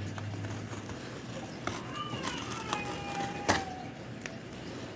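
A young child crying and whining in the background, the voice wavering up and down in pitch, with a few sharp clicks and knocks from packaging being worked open; the loudest click comes about three and a half seconds in.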